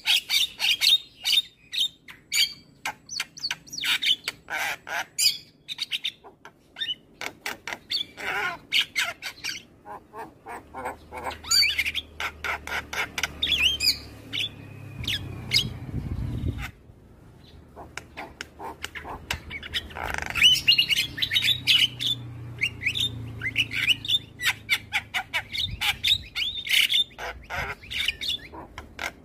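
Javan myna calling: a rapid, chattering run of harsh squawks and chirps, with a short break a little past the middle before the calling resumes.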